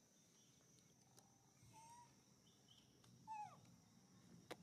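Faint, short squeaking calls from a baby macaque: a rising one just before the middle and a louder, falling one about three seconds in, over a steady high insect drone. A sharp click near the end.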